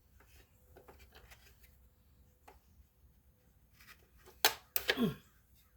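Small hand-handling sounds from a solar light and its wired-in battery: faint clicks and rubs, then two loud sharp clicks near the end, the second followed by a short falling vocal sound.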